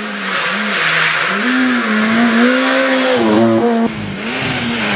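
Rally car engine revving hard through a bend, its pitch climbing and dropping again with quick gear changes, over a loud hiss. Near the end the sound cuts abruptly to another rally car's engine running more steadily.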